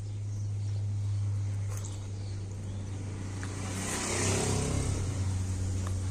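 Motor vehicle engine running steadily with a low hum, swelling louder and noisier around four seconds in as it works or passes close by.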